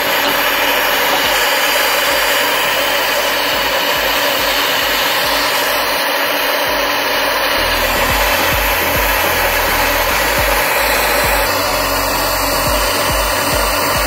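Handheld gas torch burning with a loud, steady hiss, its flame played on seized steel bolts to heat and free them.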